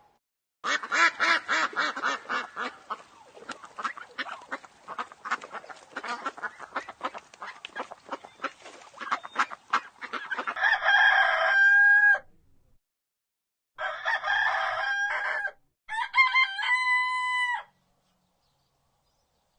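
Chickens clucking rapidly for about ten seconds, followed by a rooster crowing three times with short pauses between the crows.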